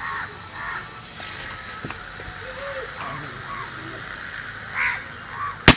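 Plastic water bottle with sodium metal inside bursting near the end in one sharp, loud bang, blown apart by the sodium–water reaction.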